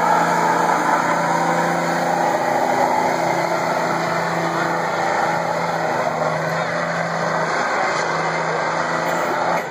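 Modified stock pulling truck's engine held at full throttle at steady high revs while it drags the weight-transfer sled. The engine note dips and recovers slightly around the middle.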